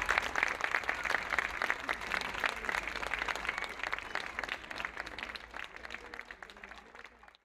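Audience applauding, many hands clapping together. The applause fades out gradually over the last few seconds and cuts off near the end.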